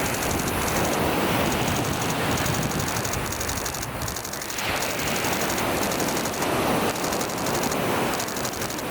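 Nikon D6 shutter firing in continuous high-speed bursts: very rapid, even clicking like a machine gun, in several runs of one to two seconds with short pauses between them, over steady wind noise on the microphone.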